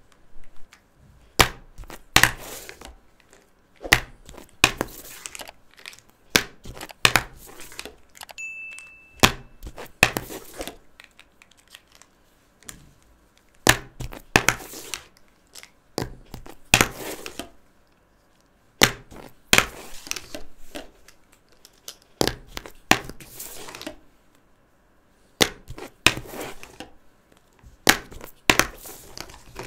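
Big felt-tip markers scribbling across paper in short scratchy strokes, with sharp clicks between them and a brief high squeak about nine seconds in.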